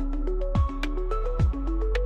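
Electronic background music with a steady beat: a deep kick drum a little under once a second under a short, stepping run of notes and light ticking percussion.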